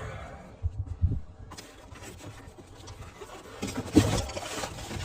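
Spray paint cans and their packaging being handled and set down: a few dull knocks about a second in, a louder knock near four seconds, and faint rubbing in between.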